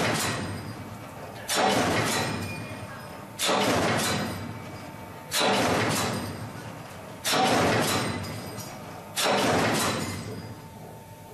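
Automatic CNC punch press punching holes in steel sheet, a sudden hit about every two seconds, five strokes, each dying away over a second or so.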